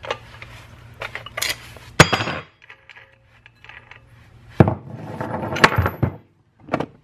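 Metal-and-plastic handling sounds of a cordless angle grinder and its parts being picked up and set down: a sharp knock about two seconds in, a clattering run of knocks and clicks from about four and a half to six seconds, and a last click near the end. The grinder is not running.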